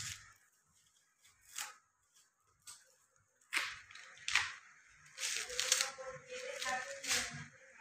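Plastic packaging crinkling and rustling as it is handled, in scattered bursts that become busier and louder after the first few seconds.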